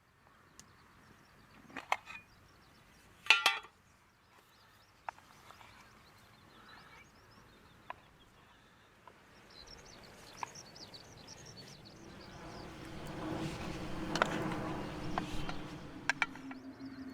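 Two sharp ringing metal clinks, like a utensil striking an iron pot, then scattered light ticks and small high chirps. From about twelve seconds in, a swelling rush of noise with a steady low hum underneath.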